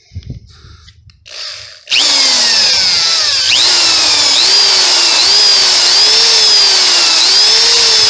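A few faint handling noises, then about two seconds in an electric drill starts up loud, drilling out a motorized-bike engine's mount bolt hole to tapping size for an M8 thread. Its motor pitch sags and recovers several times as it works.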